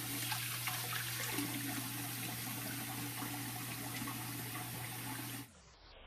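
Water running and splashing, with a steady low hum underneath. It cuts off abruptly about five and a half seconds in, leaving only a faint muffled hiss.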